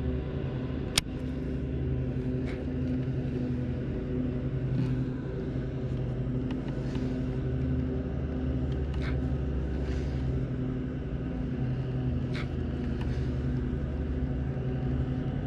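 A steady low mechanical hum with a few sharp clicks scattered through it, the clearest about a second in.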